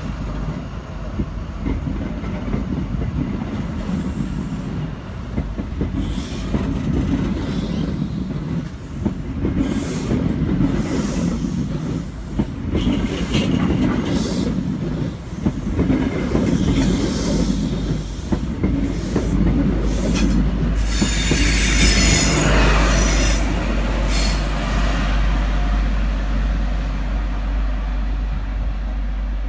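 InterCity 125 high-speed diesel train pulling away: Mark 3 coaches roll past with a heavy rumble and clattering, squealing wheels. About two-thirds of the way through, the rear Class 43 power car goes by with a loud deep diesel drone, the loudest part, then fades as it draws away.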